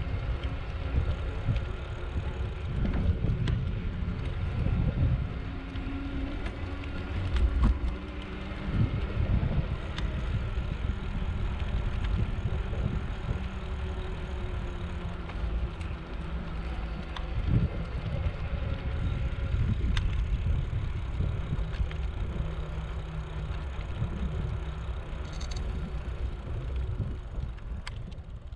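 Wind rumbling on the microphone of a GoPro carried on a moving e-bike, over the roll of tyres on a paved path, with a faint high whine that comes and goes.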